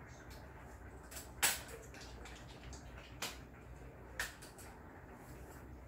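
Sharp clicks and knocks of an AirForce Texan SS air rifle's parts being handled and fitted together by hand: three distinct clicks, the loudest about a second and a half in and the others around three and four seconds in, with a few fainter taps between.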